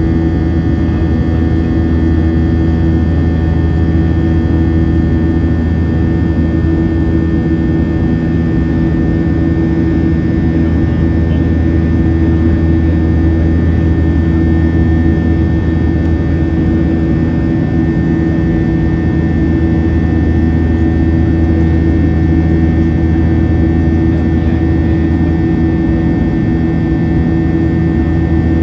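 Boeing 737-800 in flight, heard from inside the cabin beside the wing: its CFM56-7B turbofan engines running with a steady drone, a strong low hum and several steady tones above it.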